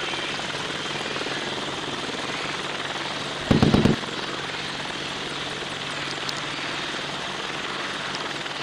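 Helicopter sound effect: a steady rotor and engine noise, with one loud low thump about three and a half seconds in that lasts about half a second.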